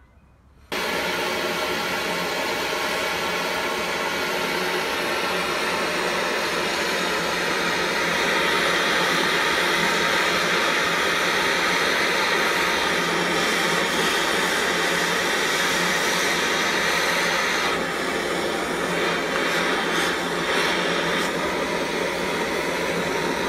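Campingaz butane blowtorch flame burning with a steady hissing rush, starting abruptly about a second in.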